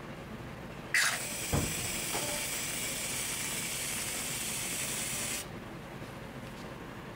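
Whipped cream dispenser hissing as it pipes cream. The hiss starts suddenly about a second in, with a short low knock just after, and cuts off about four seconds later.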